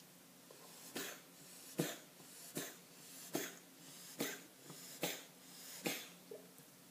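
Persian cat sneezing over and over in a rapid fit, seven sharp sneezes about one every 0.8 seconds, each with a short breath drawn in before it.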